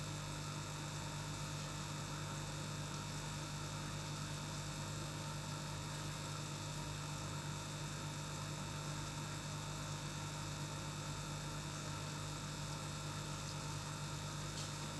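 Aquarium air pump giving a low, steady electric hum, with an even hiss beneath it.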